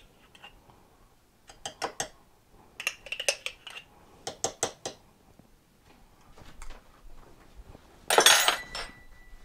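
A spoon clinking and scraping against a glass jar of whipped cream as it is scooped onto mugs of cocoa, in short groups of quick clinks. About eight seconds in there is a louder clatter, followed by a brief ringing tone.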